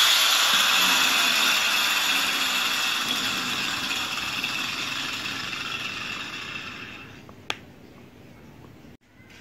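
Angle grinder spinning down after being switched off, its whirring dying away gradually over about seven seconds. A single sharp click comes near the end.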